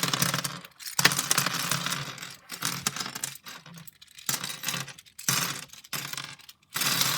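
Plastic pieces of a 5x5x5 Rubik's cube clicking and clattering as the cube is pried apart and its pieces spill onto a surface, in a series of bursts with short pauses.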